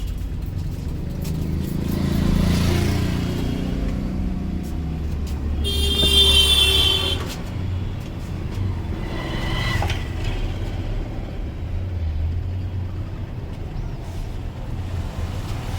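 Road traffic rumbling steadily, with a vehicle horn sounding once for about a second and a half near the middle, the loudest thing here.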